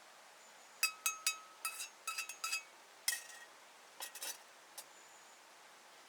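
A kitchen utensil clinking repeatedly against a dish, about a dozen quick strikes in two bunches, several leaving a short ringing tone.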